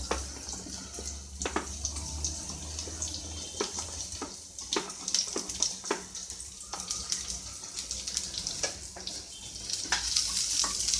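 Sliced onions scraped with a wooden spatula off a steel plate into a frying pan of hot oil: a steady sizzle with scattered clicks and taps of the spatula, the sizzle growing louder near the end as more onion goes in.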